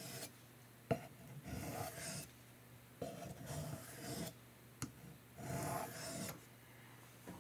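Knife blade stroked across a soft Arkansas sharpening stone: several rasping passes about a second long each, with a few light clicks between them.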